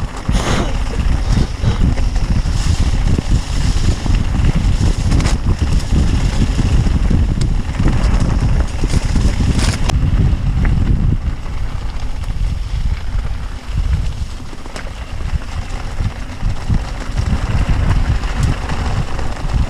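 Wind buffeting the microphone of a camera on a mountain bike riding a rough off-road trail, with knocks and rattles of the bike over the ground. The clatter eases about ten seconds in, leaving a lower rumble.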